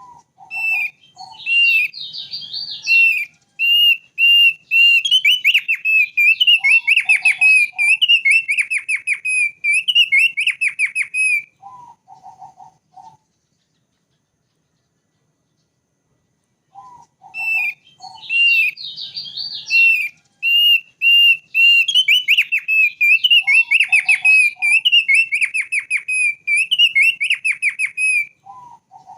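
Thick-billed white-eye (opior paruh tebal) singing: long fast runs of clear whistled notes, broken by short groups of lower notes. The same song bout plays twice, with a pause of about four seconds between.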